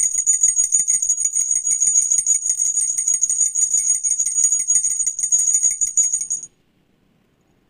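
Small jingle bells shaken rapidly and continuously, with a bright, high ringing, cutting off sharply about six and a half seconds in.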